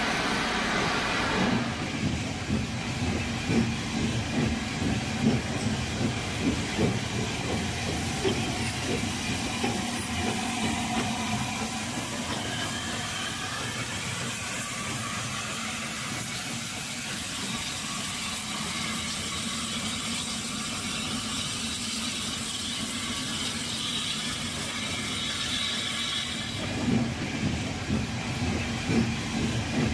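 Steam tank locomotive hissing steam, with a run of loud, irregular chuffs in the first several seconds and again near the end, and a quieter steady hiss in between.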